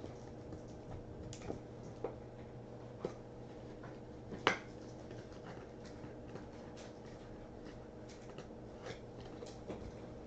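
Light clicks and taps of 1978 Topps baseball cards being handled and flipped through by hand, a few sharper ticks scattered throughout, the sharpest about four and a half seconds in, over a faint steady hum.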